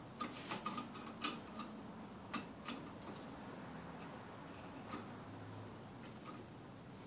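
Light, irregular metallic clicks and taps as a C-clamp is set on a brake caliper and screwed in to push the caliper piston back, bunched in the first few seconds and sparser after.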